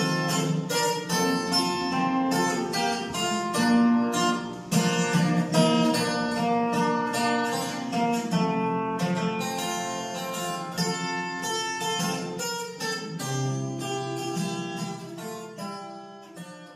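An acoustic guitar plays alone through the closing bars of a song, then the sound dies away near the end.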